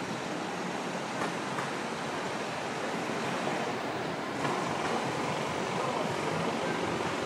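Steady city street ambience: a continuous wash of passing traffic noise with a few faint ticks.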